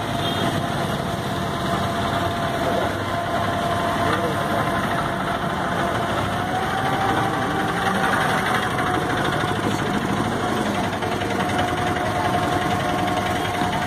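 Vehicle ferry's engine running steadily with a constant drone, its pitch lifting slightly about six seconds in and settling again a few seconds later.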